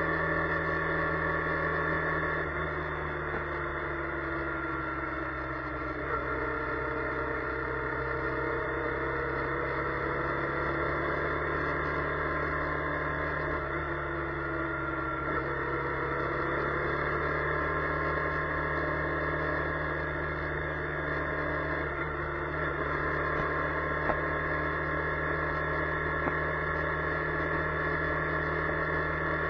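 Steady drone inside a moving car, picked up by a dash camera's microphone: several tones slide slowly up and down in pitch as the engine and road speed change. A few faint clicks sound along the way, the sharpest near the end.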